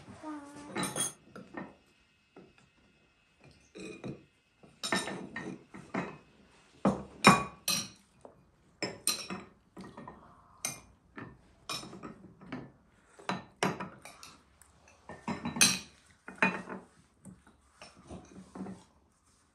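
Tableware clinking: forks and spoons tapping on china plates and tea glasses knocking on glass saucers, in irregular sharp clinks with short gaps.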